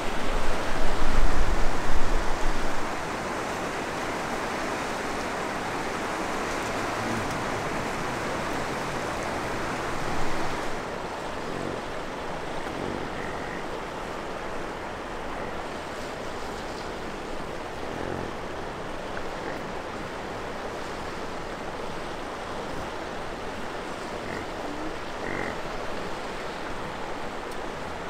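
Steady rush of a high-running river in flood, with bison grunting low and croaky as the herd walks past. A loud low rumble fills the first three seconds.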